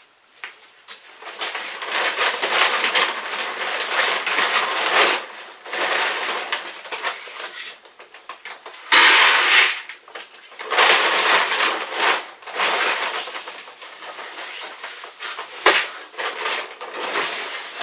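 Dry horse feed scooped from a bag and poured into a bucket: several rattling pours, each lasting a second or a few, with knocks of the scoop between them. The loudest pour starts suddenly about nine seconds in.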